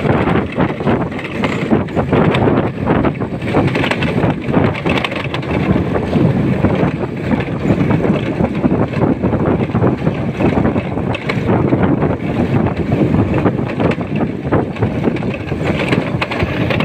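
Wind buffeting the microphone over a motorcycle running at riding speed on a dirt track, a steady loud rush.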